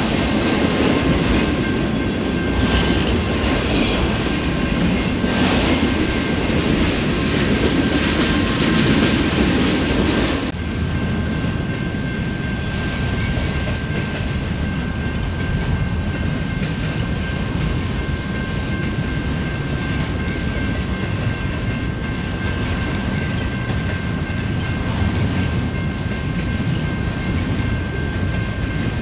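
Freight train cars rolling past, wheels clacking over the rail joints, with a thin steady high wheel squeal. The heavy low rumble drops off suddenly about ten seconds in, leaving a lighter, steady rolling sound.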